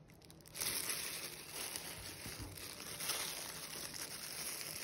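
Thin plastic glove crinkling and dry amaryllis bulbs rustling in a cardboard box as the bulbs are handled, starting about half a second in and going on unevenly.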